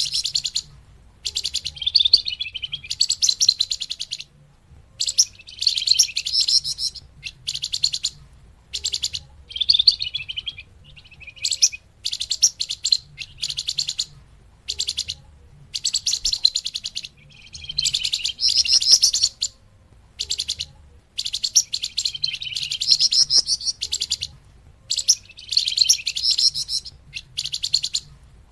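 Songbird known in Indonesia as the flamboyan, recorded as a trapping lure: high, rapid chattering trills in repeated phrases of about a second each with short gaps between them.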